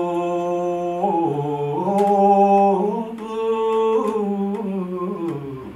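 A man singing a slow song without accompaniment, holding long notes that step up and down in pitch.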